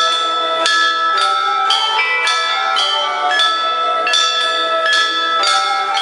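A set of bronze chime bells (bianzhong) struck to play a melody, about two notes a second, each note ringing on under the next.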